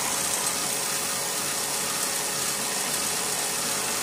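Bafang BBS02 750-watt mid-drive e-bike motor running steadily, driving the chain and spinning the raised rear wheel in top gear: an even whir with a strong hiss.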